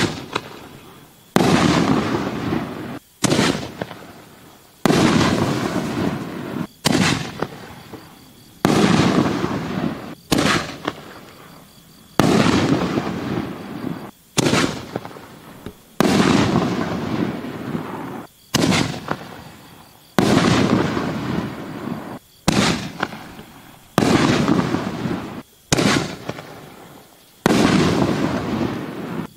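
4-inch canister firework shells fired one after another: a sharp report about every two seconds, each fading away over a second or more.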